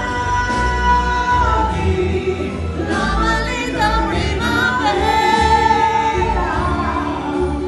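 Karaoke singing: women's voices singing over a backing track, holding two long notes, one at the start and one about five seconds in.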